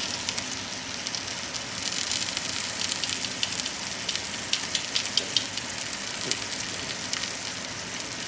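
T-bone steak sizzling in a nonstick frying pan: a steady hiss of frying fat with quick crackles and pops, thickest in the middle.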